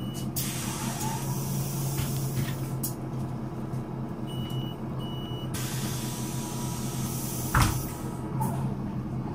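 Solaris Urbino 12 III city bus's DAF six-cylinder diesel idling steadily. There are stretches of hiss, two short high beeps about halfway through, and a sharp thump near the end.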